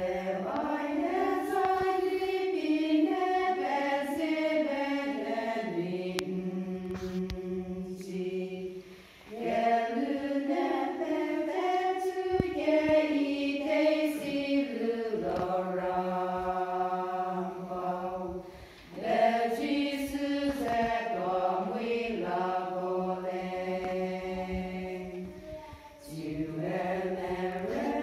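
Women's choir singing a hymn in long held notes, phrase by phrase, with three short breaks for breath between phrases.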